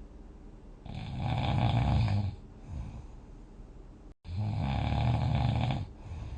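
A person dozing off, snoring: two long, loud snores about three and a half seconds apart.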